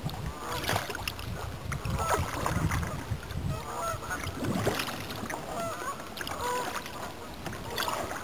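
A kayak being paddled slowly, with paddle strokes and water dripping off the blade. Short repeated bird calls sound in the background throughout.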